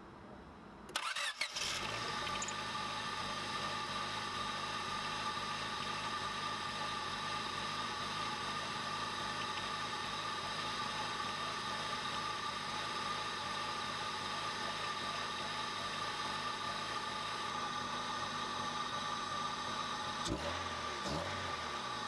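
Honda Civic's D16Y7 1.6-litre four-cylinder engine cranks and catches about a second in, then idles steadily with a newly fitted manual transmission, run to check for the bearing noise that ruined the previous gearbox. Two light knocks near the end.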